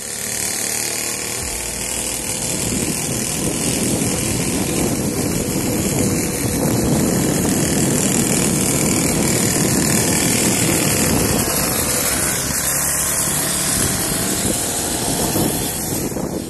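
A pocket bike's small engine running steadily as the bike rides off down the street.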